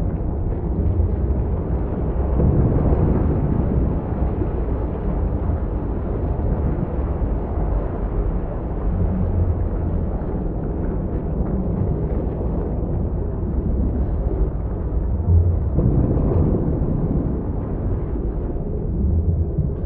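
Ocean surf washing onto a beach: a continuous low rumbling wash that swells and eases, with a louder surge about sixteen seconds in.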